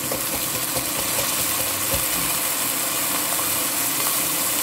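Red wine sizzling and bubbling hard as it hits hot sautéed onions in an enamelled pot, deglazing it; a steady, even hiss.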